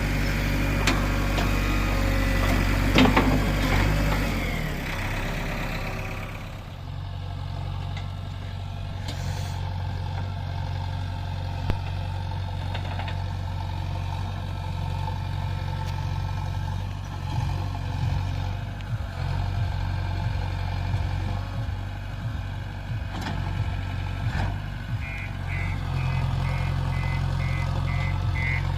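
Diesel engine of a JCB 3DX backhoe loader running steadily, louder and busier for the first six seconds or so before settling to a lower steady hum. Near the end a reversing alarm starts beeping, about two beeps a second.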